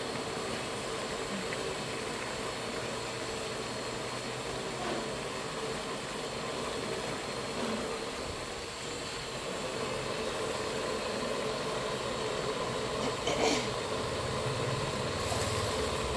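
Steady roar of a gas-cylinder burner under a wok of frying squid and vegetables, with the food cooking in it. A short knock about 13 seconds in.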